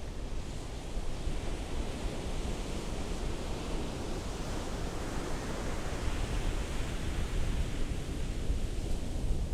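Ocean surf washing in: a steady rushing hiss that swells through the middle and eases toward the end, over a low rumble.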